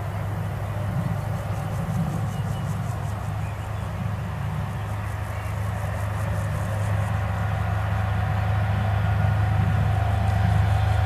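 SNCF diesel locomotive approaching with its train from a distance: a steady low engine drone that grows gradually louder, with a higher steady whine coming in near the end.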